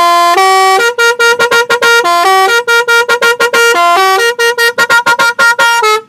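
Basuri musical air horn, a row of compressor-fed trumpet horns, playing its first preset tune as a loud "telolet" melody of rapid short notes mixed with a few held ones.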